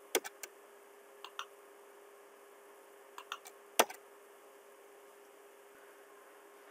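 Scattered clicks of a computer keyboard and mouse: a few quick taps at the start, a pair about a second in, and a small cluster just past three seconds ending in the loudest click, over a faint steady hum.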